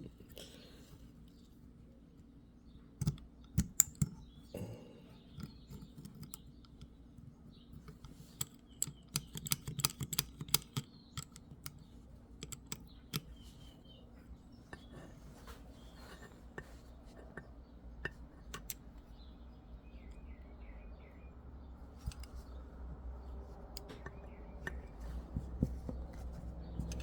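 Small metal clicks and taps of revolver parts being handled up close while the hammer spring is worked into an antique Hopkins and Allen Forehand revolver. The clicks come in scattered bursts, busiest about three seconds in and again around nine to eleven seconds.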